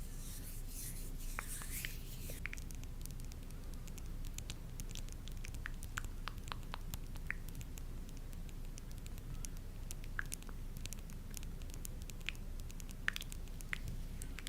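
Close-miked ASMR tapping: many small, scattered light taps and crackly clicks, with a soft rustle in the first two seconds, over a steady low hum.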